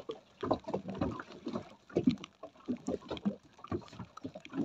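Small waves slapping and lapping against the hull of a small boat at anchor, in irregular choppy bursts, with a few sharp knocks.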